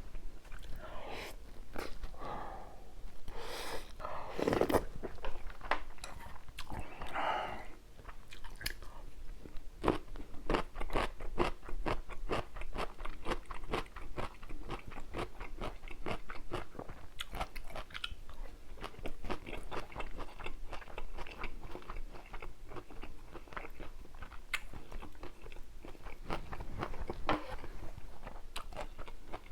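Close-miked eating: chewing and biting crunchy food. A few softer, smeared mouth sounds come first, then a long run of quick, sharp crunches from about nine seconds in.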